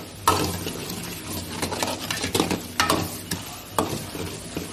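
A metal ladle stirs and scrapes thick onion-tomato masala frying in oil in a metal pan, under a steady sizzle, with about six sharp scrapes and knocks against the pan. The masala is being sautéed until the oil separates.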